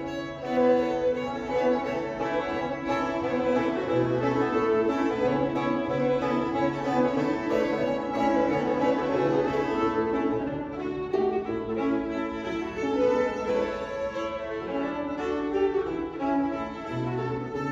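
Old-time string band of two fiddles and a banjo playing a fiddle tune, continuous and steady, with bowed fiddle notes over sustained low drone notes.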